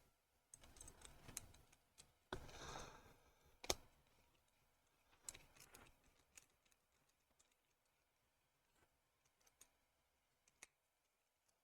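Faint, scattered clicks and a brief light scrape of small model engine parts being handled and small screws being driven into plastic with a hand screwdriver, with one sharper click a little under four seconds in.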